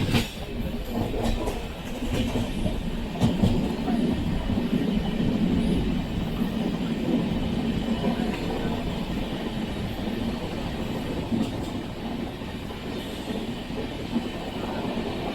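Sleeper-class coach of an Indian express train running along the track: a steady rumble of wheels on rail with a few scattered clicks from the rail joints.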